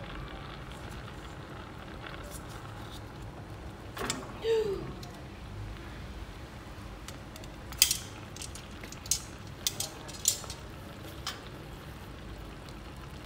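Metal tongs clicking and tapping against a frying pan as fish roe sacs are turned over, in scattered sharp clicks that gather in the second half.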